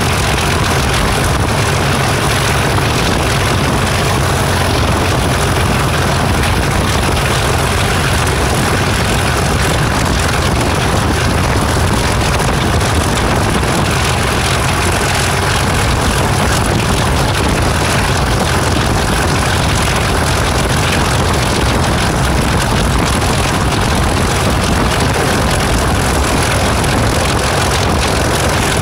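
Class 37 diesel-electric locomotive's English Electric V12 diesel engine running steadily at a constant pitch and level, with a deep low rumble and a faint steady high whine.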